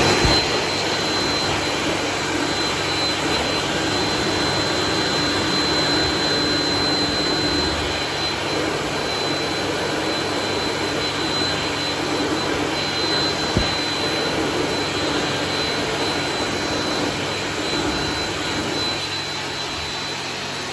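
PHS Ultradry LE automatic warm-air hand dryer running steadily under hands: a loud rush of air with a thin high-pitched whine held over it.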